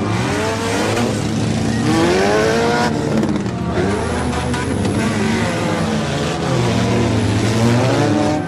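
Several demolition derby cars' engines revving hard over one another, their pitches rising and falling as the cars speed up and slow down.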